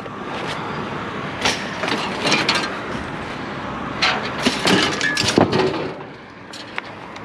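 Several clanks and rattles of scrap being handled, loudest between about four and five and a half seconds in, over a steady rumbling background noise.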